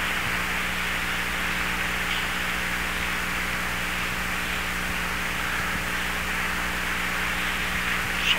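Steady hiss and low hum from an audio recorder's own background noise during a silent stretch of an EVP recording, between the investigator's question and the reply. A brief blip comes near the end.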